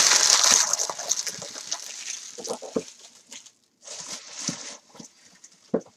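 Trading-card pack wrapper crinkling loudly as it is handled and torn open, fading after about a second into softer rustling, with a few brief soft knocks of cards being handled.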